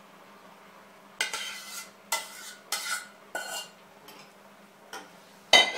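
Spoon scraping and stirring against an enamel pot of cooked cabbage and sauce: four short scrapes starting about a second in, then a louder clatter just before the end.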